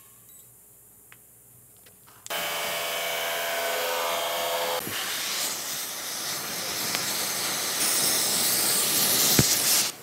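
A gas cutting torch starts with a sudden, loud, steady hiss about two seconds in, its flame played on the drive shaft's universal-joint yoke to heat it and free the old joint; the hiss stops abruptly near the end. Before it, only a few faint clicks of handling.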